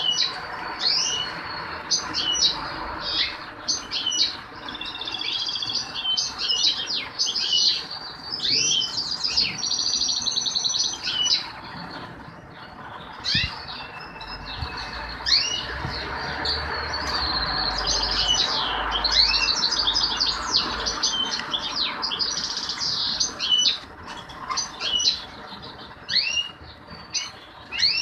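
Caged finches, European goldfinches and their canary-cross mules, singing: a dense run of fast twittering phrases, chirps and trills from several birds at once. A faint steady hum lies beneath.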